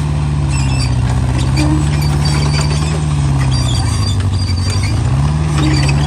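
Small hydraulic excavator's diesel engine running under load, its pitch dipping and rising again as the hydraulics work, with short high-pitched squeaks over it.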